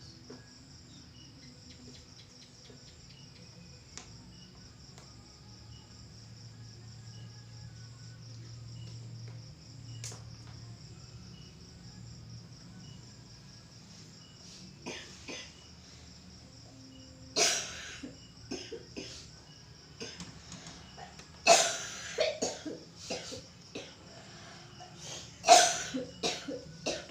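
A person coughing in repeated fits that begin about halfway through and grow louder toward the end, the long-standing cough that is blamed on black magic. Crickets chirr steadily and high underneath.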